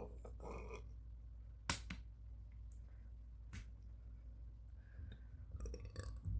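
A few sharp clicks over a steady low hum: one a little under two seconds in, another about two seconds later, then a cluster of small clicks near the end.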